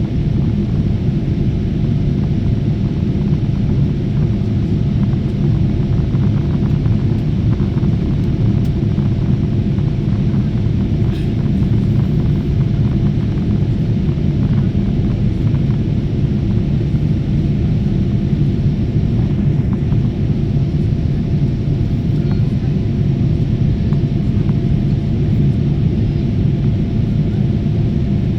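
Jet airliner cabin noise in flight: the engines and rushing air make a steady, loud low rumble with no change.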